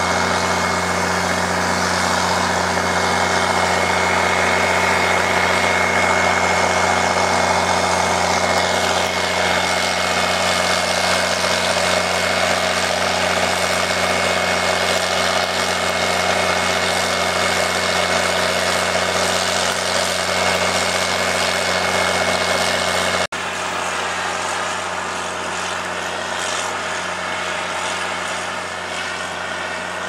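Six-cylinder John Deere diesel engine running steadily under load, driving a high-pressure irrigation pump, with a steady high whine over the low drone. The sound briefly cuts out about two-thirds of the way through, then carries on slightly quieter without the whine.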